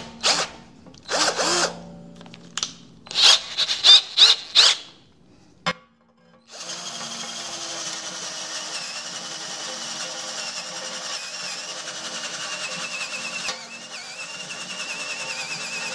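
Titanium T12 12V cordless drill running on low speed with a small step bit cutting into steel plate: a steady whine from about six seconds in that lasts about ten seconds. Before that come several short, loud bursts. The chuck cannot hold the bit, which keeps slipping.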